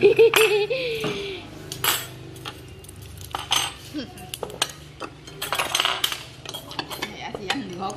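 Cutlery and dishes clinking and knocking at a meal table: a scatter of separate sharp clinks spread over several seconds, with a brief voice near the start.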